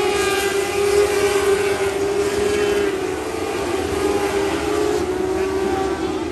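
Several Lightning sprint cars' 600cc motorcycle engines running hard around a dirt oval, a steady layered engine note that eases slightly toward the end.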